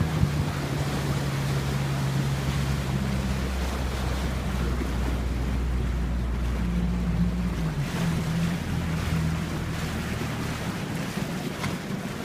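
Small outboard motor on an inflatable boat running steadily, a low hum whose pitch shifts slightly a few times, with water and wind noise over it.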